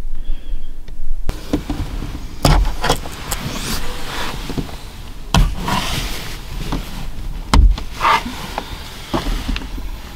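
Rustling of bedding and clothes, with several dull knocks and thumps, as someone moves about inside a parked car. The loudest thump comes about three-quarters of the way through.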